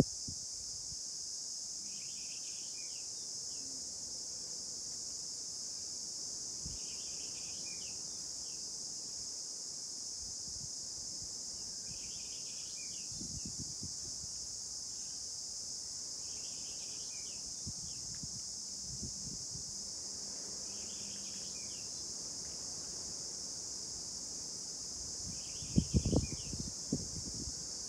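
Steady high-pitched chorus of crickets, with a short chirping call repeated every four to six seconds. A few low knocks sound near the end.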